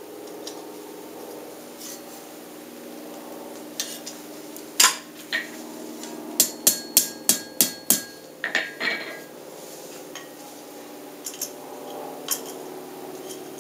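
Hand hammer striking hot steel on an anvil: a couple of single blows, then a quick run of about seven blows with the anvil ringing. These are light strikes adjusting the bend of a forged scroll.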